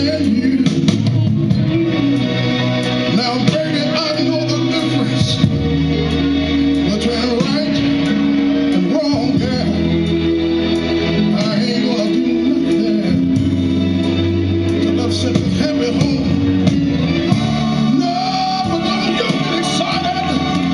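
A male soul singer singing into a microphone over backing music with a steady bass line.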